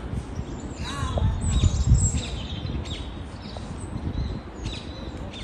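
Small birds chirping again and again in short, high calls, over a low rumble that swells about two seconds in.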